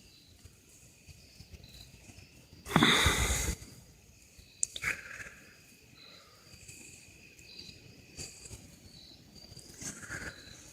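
Insects chirring steadily in the background. About three seconds in there is a brief loud noisy burst, and a sharp click follows a little over a second later.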